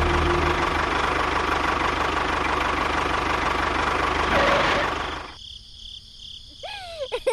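A small motor runs with a steady noise and stops about five seconds in. Near the end, rapid high chirping calls begin.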